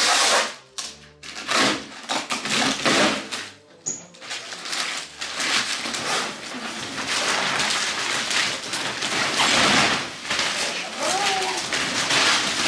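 Thick plastic packaging crinkling and rustling as it is cut open and pulled off a rolled, compressed hybrid mattress: separate bursts for the first few seconds, then a continuous rustle.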